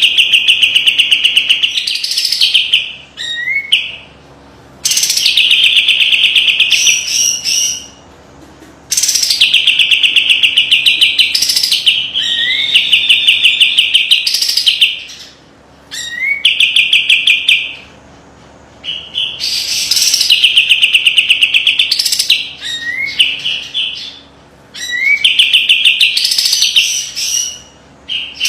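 A kapas tembak songbird singing loud, repeated phrases about every four seconds. Each phrase is a sharp, tight trill of rapidly repeated notes (the 'besetan') ending in a few short rising notes.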